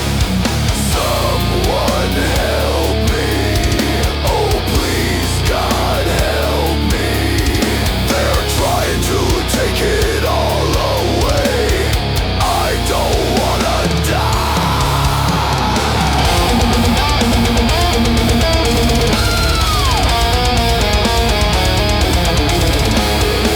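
Heavy metal song in an instrumental stretch without vocals. A distorted electric guitar lead plays sweeping, bending runs and then holds one long high note, over steady drums and bass.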